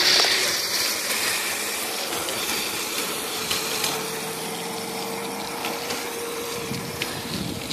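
Steady rushing noise on a handheld phone microphone as it moves outdoors, with scattered light ticks. A faint steady hum runs through the middle few seconds.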